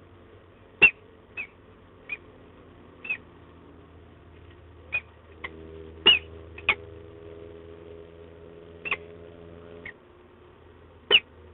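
Peregrine falcons giving short, sharp, slightly down-slurred chip calls, about eleven of them at irregular intervals, over a low steady hum.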